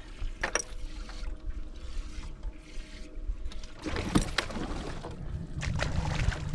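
Water splashing and sloshing with a few clicks and knocks, in two bursts later on, as a just-caught bass is handled aboard a bass boat for culling. A faint steady hum runs underneath.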